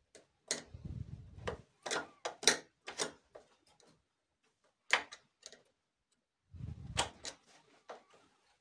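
Screwdriver tip clicking and scraping against a PC power supply's small slide switch for selecting 115 or 230 V, and its steel case, as the switch is pushed over to the 115 V setting. A string of sharp clicks, with two brief low bumps from the unit being handled.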